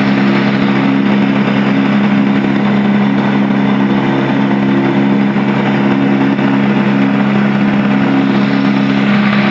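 An engine running steadily at a constant speed, a loud even drone with a broad hiss over it and no change in pitch.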